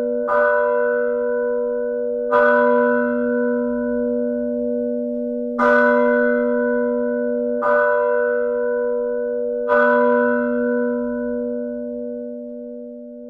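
A single church bell tolling, struck five times about two to three seconds apart, each stroke ringing on into the next. The ringing dies away over the last few seconds.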